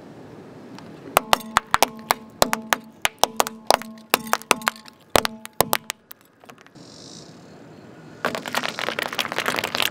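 Disposable plastic spoons snapping one after another under a slowly rolling car tyre: about fifteen sharp cracks over some five seconds. After a pause, near the end, a dense run of crackling as the tyre crushes a pile of cherry tomatoes.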